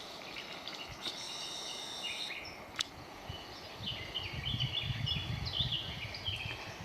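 Wild songbirds singing in a forest: a buzzy trill about a second in, then a run of short chirping notes through the second half, with a single sharp click near the middle.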